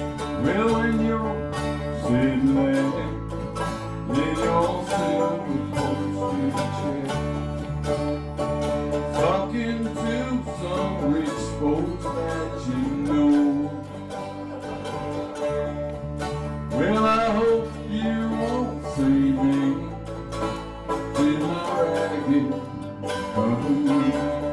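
Small acoustic band playing a country-rock tune: acoustic guitar, electric bass and banjo, with the bass holding long notes that change every few seconds and a wavering lead melody over the top.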